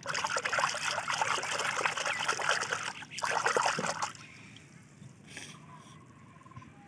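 A hand swishing and splashing through a tub of soapy water, with a short break near three seconds; the splashing stops about four seconds in.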